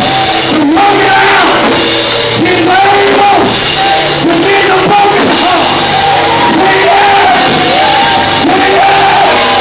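Loud church music with a single voice singing out in repeated rising and falling phrases over steady accompaniment, in a large hall.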